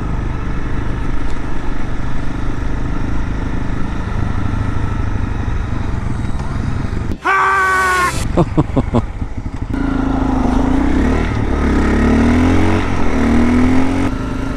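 Single-cylinder engine of a Honda CRF250L dirt bike running steadily under way, then pulling up through the gears in a series of rising revs near the end. About halfway, a loud pitched tone lasting about a second cuts in and stops abruptly.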